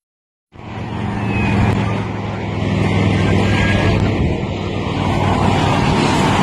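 Highway traffic passing: cars' engine and tyre noise. A faint siren begins to wail near the end.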